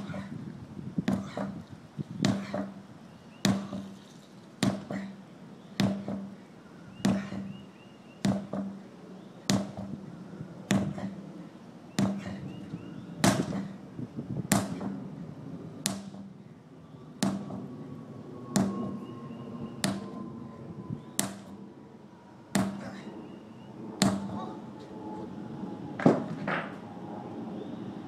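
Sledgehammer striking a large tractor tire over and over, about one blow every second and a quarter, some blows leaving a short low ring. The blows stop shortly before the end, the last one the loudest.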